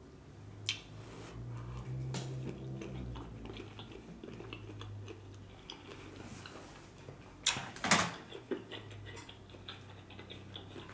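Close-miked chewing of a mouthful of cheesy shrimp and grits: soft wet mouth sounds with scattered small clicks, and a louder pair of smacks about eight seconds in.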